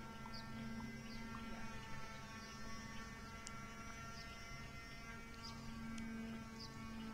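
A faint steady hum of several held tones, with short, faint high chirps about once a second.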